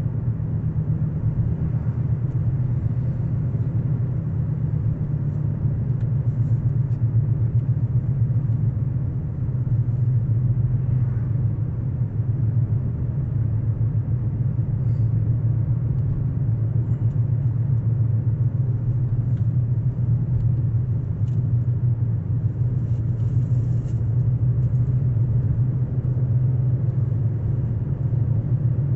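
Steady low rumble of road and engine noise inside a moving car, unchanging throughout.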